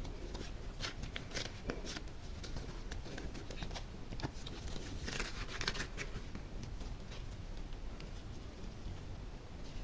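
Slime being handled together with small decorations: irregular soft clicks and crackles, busiest about five to six seconds in.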